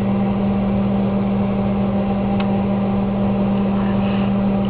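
Microwave oven running with a steady, even hum while an egg heats inside, with one faint tick about halfway through.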